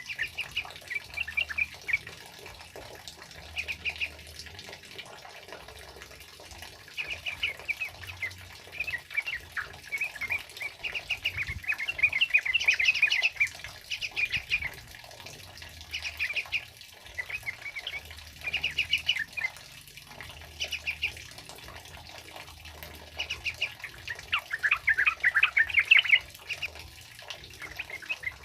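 Sooty-headed bulbuls (trucukan) singing in quick chattering phrases that come every second or two, over a steady hiss of heavy rain.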